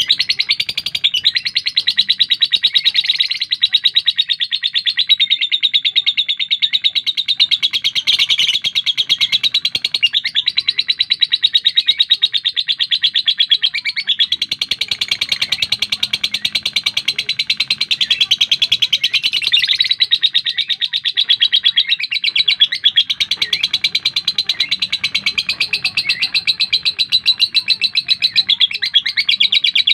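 Lovebird singing one long, unbroken stream of rapid, high chattering notes, with no pause.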